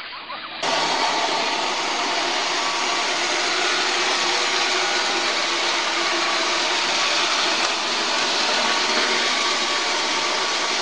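Robot vacuum cleaner running with a steady whirring noise, starting about half a second in.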